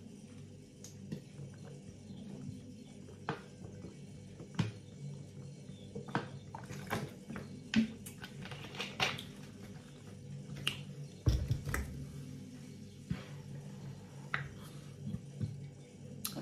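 Scattered clicks and clinks of a utensil against a bowl while ramen noodles are eaten, with a dull thump about eleven seconds in.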